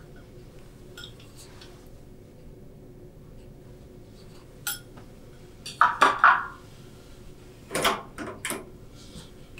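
Kitchen utensils knocking and clinking against a cooking pot, in short bunches about six and eight seconds in, over a faint steady hum.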